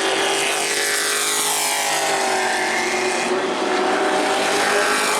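Several race trucks' engines at racing speed, a dense blend of engine tones, with pitches falling in the first two seconds or so as trucks go by.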